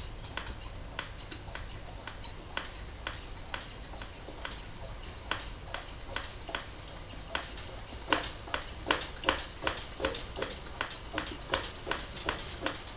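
Hand pump of a brass Anchor-brand 500-candlepower pressure lantern being worked in regular strokes, about two to three clicks a second, to pressurise the fuel tank after alcohol preheating. The strokes grow louder from about eight seconds in.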